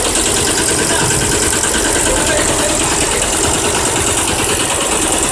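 Tai Sang multi-head computerised embroidery machine with dual sequin attachments stitching at speed, its needles and sequin feeders making a fast, steady mechanical rattle.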